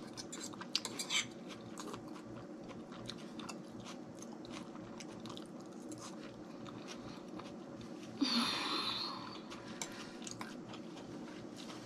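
Close-miked chewing and mouth sounds of someone eating baked escargot, with a few sharp clicks of a fork against the dish. A brief louder, breathy burst comes about eight seconds in.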